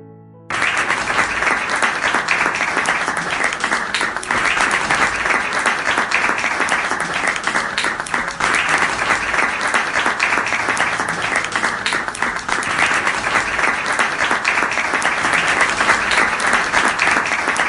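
Crowd applause, many hands clapping, starting suddenly about half a second in and going on steadily, with soft music underneath.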